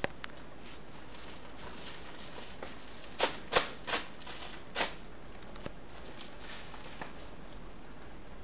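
A cat scrabbling and scuffing on a tiled floor as it wrestles a plush toy: a few faint clicks, then four short, loud scuffs close together about three seconds in, over a steady faint hiss.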